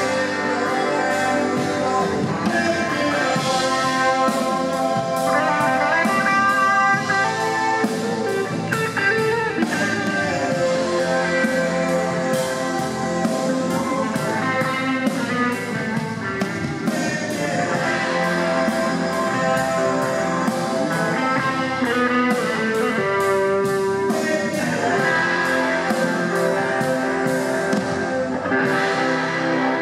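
Live band playing: acoustic and electric guitars over bass and a drum kit keeping a steady beat.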